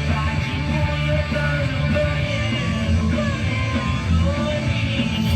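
Rock song playing, with a band of drums, bass and electric guitar and a sung vocal line.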